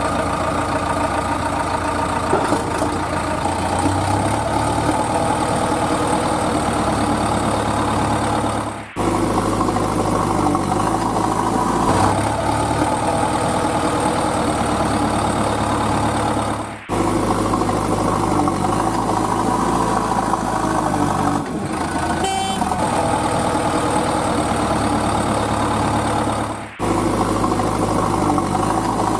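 Heavy truck engine idling steadily, with three brief abrupt dropouts where the sound cuts off and starts again.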